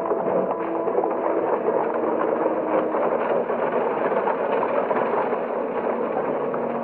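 Horse-drawn wooden carts rumbling and rattling over stone ground, with horses' hooves: a dense, steady clatter.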